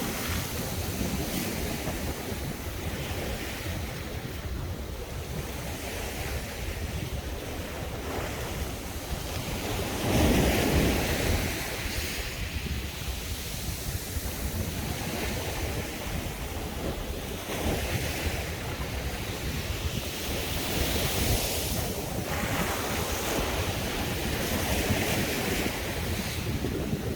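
Sea waves breaking and washing up a beach in repeated surges, with wind rumbling on the microphone. One wave comes in louder than the rest about ten seconds in.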